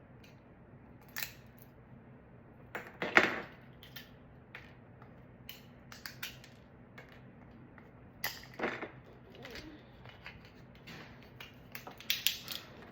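Scattered sharp clicks and snaps of 3D-printed plastic support material being cut and broken off a print with hand tools, the loudest about three seconds in. A steady low hum runs underneath.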